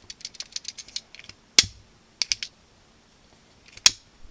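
A handheld lighter being clicked: a sharp click about one and a half seconds in, a couple of lighter clicks a little later, and another sharp click near the end that lights the flame. Before them, a run of quick light ticks in the first second.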